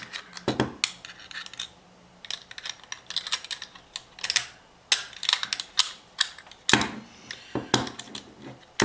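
Small metal parts of a pressure switch clicking and tapping against each other as they are handled and fitted together: irregular light clicks, bunched in places, with short pauses between.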